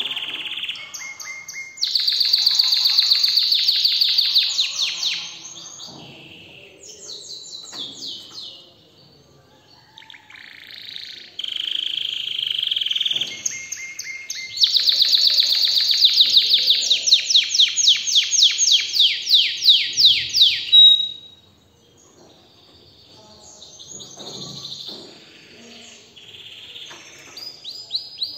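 Domestic canary singing: long phrases of fast trills of rapidly repeated high notes, broken by a few quieter pauses.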